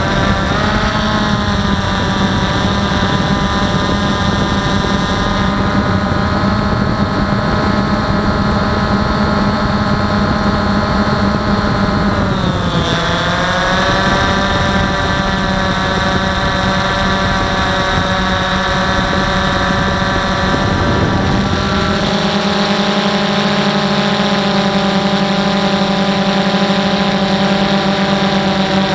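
DJI Phantom 1 quadcopter's motors and propellers whining steadily, heard from a camera mounted on the aircraft. The pitch dips briefly just under halfway through and comes back up, and a low rumble under the whine drops away about three quarters of the way through.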